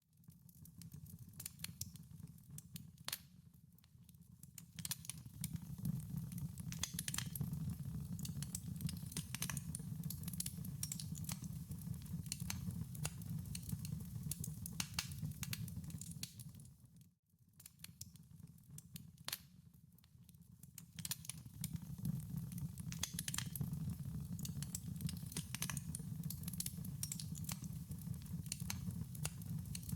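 Wood fire crackling in a fireplace: irregular sharp pops and snaps over a low, steady rumble of flames. It fades in at the start, then cuts out briefly a little past halfway and fades back in.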